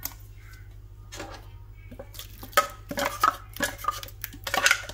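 Steel vessel clanking and scraping against a stainless steel mixing bowl as ground cassava paste is tipped and scraped into it. It starts about two seconds in with a sharp clank, then a run of knocks and scrapes, over a low steady hum.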